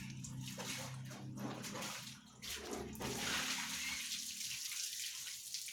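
Water running from a tap and splashing, a steady uneven hiss.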